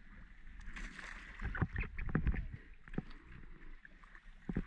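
Water sloshing and splashing around a boat, with a few scattered knocks.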